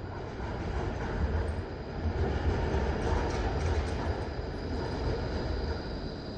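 Melbourne tram running along its street rails, a low rumble with a light clatter that grows louder over the first couple of seconds and eases off near the end.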